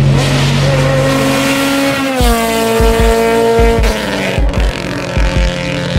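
A car engine revving hard, its pitch holding and then dropping twice as it shifts up, with short low thumps under it in the second half.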